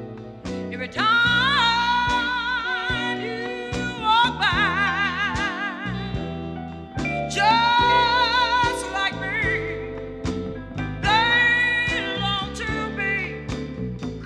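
Slow pop love ballad playing: a voice holding long notes with wide vibrato in several phrases over instrumental backing.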